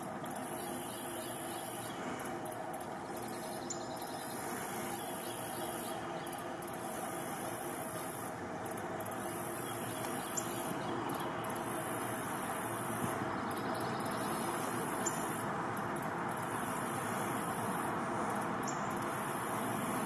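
Steady outdoor nature ambience: an even rushing hiss with a constant high insect-like buzz, and a few faint short high bird chirps a few seconds apart.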